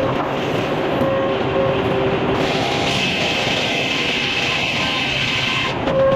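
A sawmill running steadily, its blade cutting through a log. The loud mechanical noise carries a few held tones and changes character about two and a half seconds in and again near the end.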